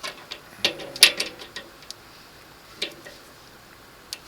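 Handling noise: a few light clicks and knocks, bunched in the first second and a half, then one near the three-second mark and one just before the end.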